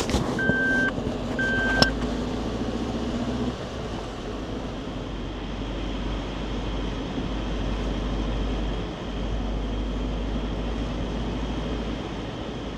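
A modified Suzuki Jimny driving, with a steady low rumble of engine and road noise. Near the start come two short electronic beeps, each about half a second long.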